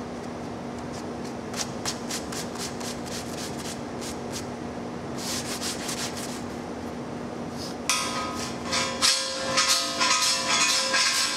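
Paint scraper scraping the adhesive black cover off a steel pipe: scattered light scratches and taps at first, then from about eight seconds in a loud, continuous rasping scrape with a few steady ringing tones in it.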